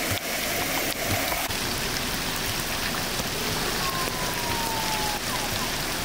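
Heavy rain pouring onto a flooded street, a steady hiss of drops hitting standing water with many small splats. For the first second and a half there is a different, steadier rush of floodwater, and a faint falling whistle about four seconds in.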